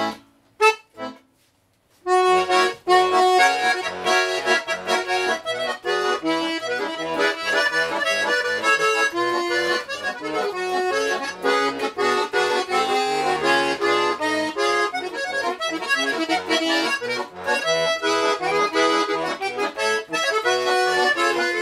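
A small 'Ogonek' bayan (Russian button accordion) being played, its reeds freshly tuned: a brisk tune on the right-hand buttons over bass and chords from the left. It stops for a moment near the start, and the tune comes in about two seconds in.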